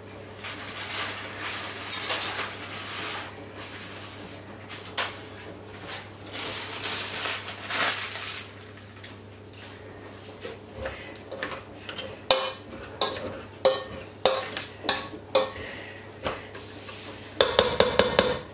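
Peas being mixed into a saucepan of mashed potatoes: a metal utensil scraping in the pan, then a string of sharp clanks against the pan, ending in a quick run of taps.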